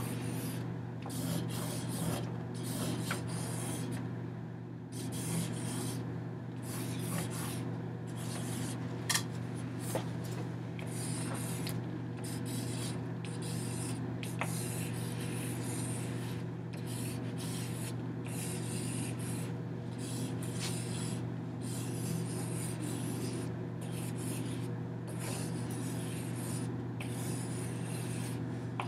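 Intermittent rubbing and scratching as hands and a hanging lattice of strips brush against a paper backdrop, with a few light clicks, over a steady low electrical hum.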